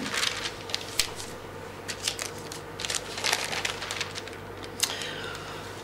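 Paper pages being leafed through: irregular soft rustles and crinkles, with a faint steady hum beneath.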